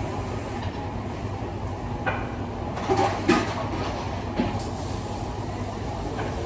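Busy commercial kitchen: a steady low rumble of kitchen machinery, with a few short clatters and knocks of utensils or dishes about two, three and four seconds in.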